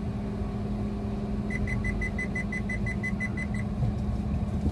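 Hyundai Elite i20's engine idling steadily while the car reverses. From about a second and a half in, a rapid run of short high beeps, about five a second, sounds for some two seconds from the car's reversing warning.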